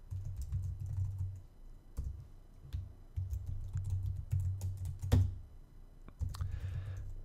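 Computer keyboard typing: a run of quick keystrokes, with a louder single key strike about five seconds in.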